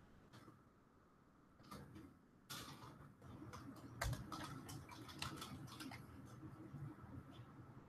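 Faint, irregular clicking of computer keyboard keys being typed, starting about two seconds in and coming thickest in the middle, with one sharper keystroke about four seconds in.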